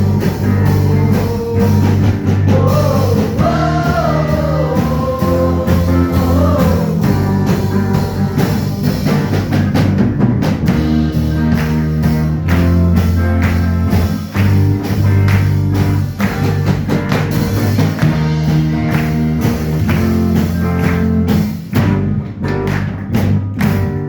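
Rock-style gospel band playing with drum kit, bass and guitar, a sung vocal line over it in the first several seconds.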